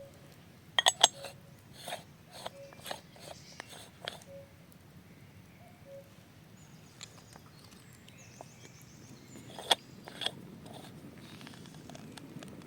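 A series of sharp clicks and knocks, the loudest cluster about a second in and two more near the end, with a few faint high chirps in the quiet middle.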